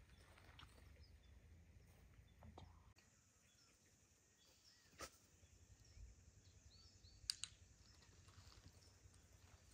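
Near silence: faint outdoor ambience with a few soft clicks.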